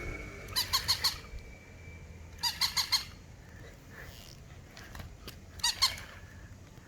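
A toy Shiba Inu dog squeaking in three quick bursts of four or five high squeaks each.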